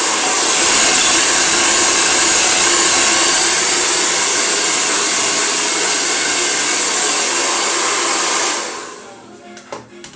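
Handheld hair dryer running steadily on wet hair, switched off about eight and a half seconds in, its noise dying away over a moment; a couple of clicks follow near the end.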